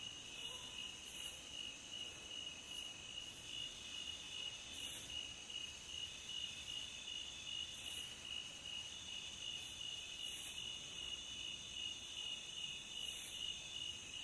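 Nocturnal forest insects, crickets among them, trilling in a steady, unbroken high chorus.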